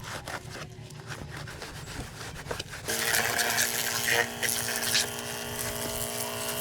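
A small electric power tool runs with a steady whirring drone, starting about three seconds in and cutting off near the end. Before it starts there is light tapping and clicking.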